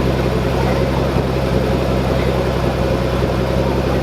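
Pagani Huayra's twin-turbo Mercedes-AMG V12 idling steadily.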